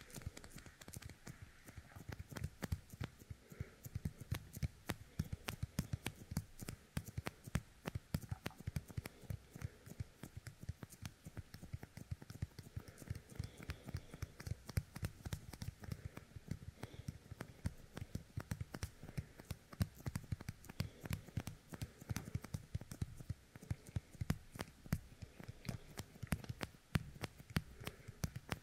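Fingertips coated with the sticky paste of a yōkai kemuri toy, pressed together and pulled apart right at the ear of a binaural dummy-head microphone: a dense, irregular run of tiny tacky crackles and clicks.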